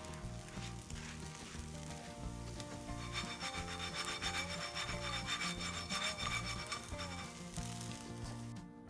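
Background music with a repeated scraping, rasping sound that starts about three seconds in and stops near the end.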